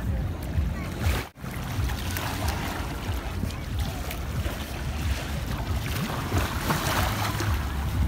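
Small waves washing at the shoreline, with wind rumbling on the microphone. The sound drops out abruptly for a moment about a second in.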